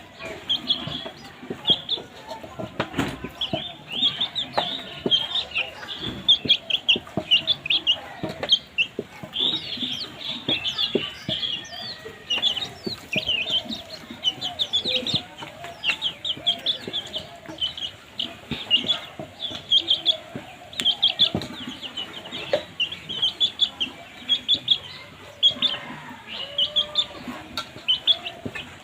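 Many baby chicks peeping at once: a dense, steady stream of short, high-pitched chirps with scattered light taps.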